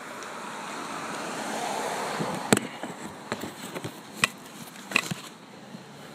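Handling noise on a handheld phone: a soft rustle that swells, then several sharp clicks and knocks about a second apart.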